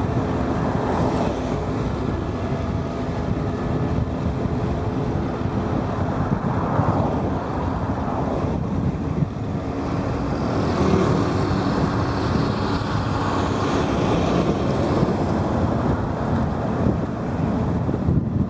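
Wind buffeting the microphone on a moving motorcycle, with a steady low hum of engine and road noise underneath.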